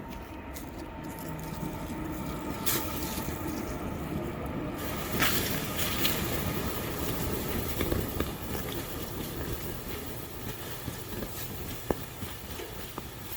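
A low rumble that swells for about six seconds and then slowly fades, like something passing by, over a crackling campfire that gives a few sharp pops near the end.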